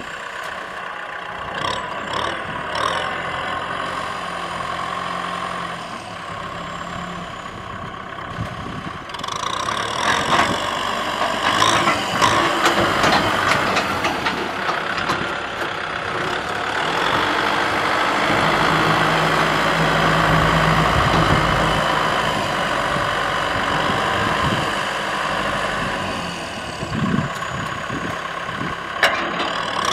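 Kubota M6040SU tractor's diesel engine running under load while it pulls a disc plough through dry soil, with scattered clatter from the discs and clods. The engine note shifts abruptly a few times.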